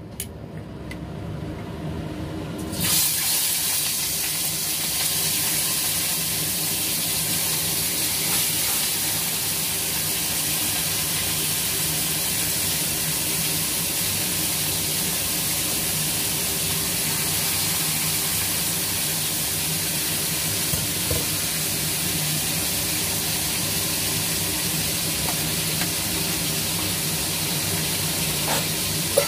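Fish sizzling in hot oil in a frying pan: a loud, steady hiss that starts suddenly about three seconds in, as the fish goes into the oil. A steady low hum runs underneath.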